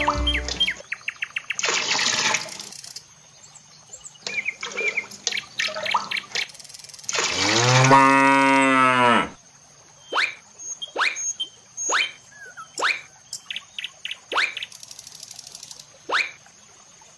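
A cow moos once about seven seconds in, a long call that is the loudest sound here. Before it comes a short splash of water near the start, and after it a run of quick, sharp bird chirps.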